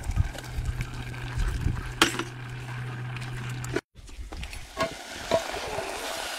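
Food sizzling in a metal pot over a wood fire as it is stirred with a metal spoon, with a sharp clink about two seconds in and scattered clinks later. A steady low hum runs under the first half and cuts off suddenly just before four seconds.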